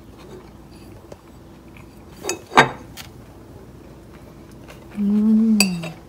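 A metal fork clinks twice against a ceramic plate about two and a half seconds in. Near the end a person hums a short 'mmm' that falls in pitch as it ends.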